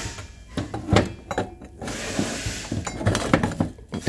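Steel clutch drum, hub and shaft parts of a Ford 6R80 automatic transmission clinking and knocking against each other and the bench as they are worked apart by hand: a string of irregular sharp knocks.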